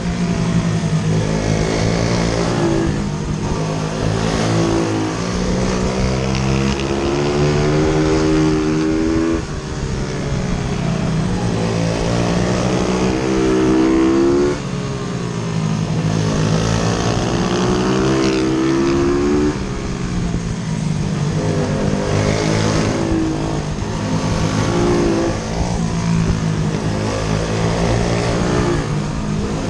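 YCF F125 pitbike's single-cylinder four-stroke engine revving hard, its pitch climbing over and over and dropping off sharply each time the throttle is shut.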